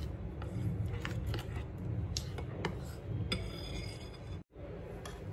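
Metal spoon stirring melted chocolate in a glass bowl, scraping and clicking against the glass, with a light clink that rings about three seconds in. A steady low hum runs underneath, and the sound cuts out for a moment near the end.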